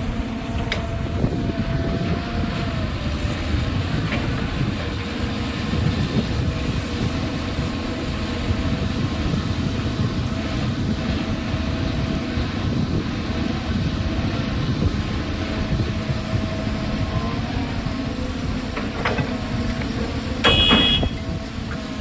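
Volvo 300 excavator's diesel engine and hydraulics running steadily while loading a dump truck, with a wavering whine over the engine noise. A brief high horn-like tone sounds about a second before the end.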